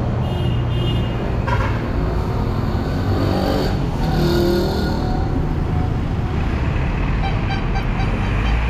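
Road traffic on a busy street: cars and other vehicles passing close by, a steady engine and tyre rumble.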